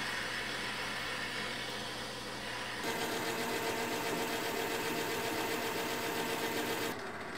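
Metal lathe running steadily with a twist drill boring into the spinning workpiece. About three seconds in the sound changes abruptly to a steadier hum as the lathe turns the part with a tool-post cutter.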